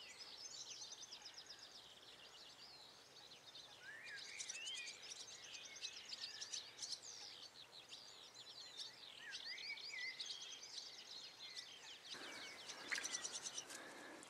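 Faint birdsong: several small birds singing and chirping at once, with quick trills and short whistled phrases overlapping throughout. A short rush of hiss comes in about twelve seconds in.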